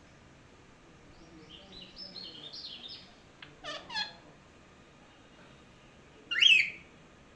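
Pet talking parrot calling: a run of soft high chirps, then two short calls, and one loud call near the end.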